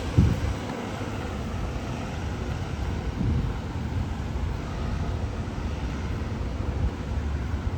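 Street ambience: a steady low rumble of passing road traffic, with a brief low bump just after the start.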